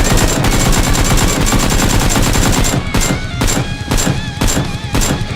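Rapid automatic gunfire, a dense stream of shots for the first few seconds that then breaks into separate shots about three or four a second.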